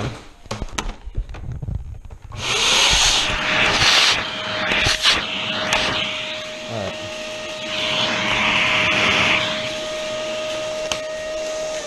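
A few handling clicks and knocks, then about two seconds in a vacuum cleaner starts. It runs with a steady whine, its hose nozzle sucking loosened coffee-ground residue out of the burr grinder chamber of a Jura Impressa C5 espresso machine. The hiss of the suction swells and dips as the nozzle moves, and the whine starts to wind down at the very end as it is switched off.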